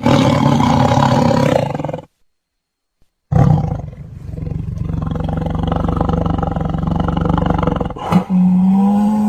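A big cat roaring in three long calls. The first lasts about two seconds. The second follows after a short silence and is held low and steady for several seconds. A third begins near the end.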